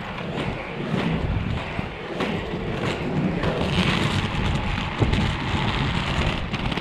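Three-wheel inline skate wheels rolling over road asphalt: a steady gritty rumble with wind noise on the action-camera microphone, scattered small clicks, and a sharp click about five seconds in.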